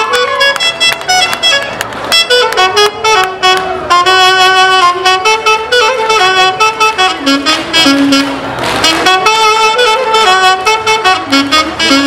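Central Andean orquesta típica playing a lively melody live, the saxophone section carrying the tune in unison over the rest of the band.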